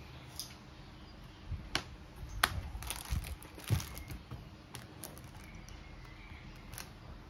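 An iPad is pulled out of its hard plastic folio case and set down on a desk, with a few sharp plastic clicks and knocks in the first half, the loudest about two and a half seconds in. Plastic wrapping and bubble wrap crinkle as a new clear case is handled.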